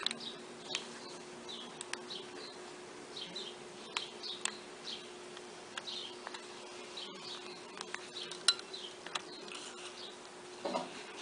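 Light clicks and taps, most likely small repair tools working on the phone, over a steady low hum, with short high chirps repeating throughout.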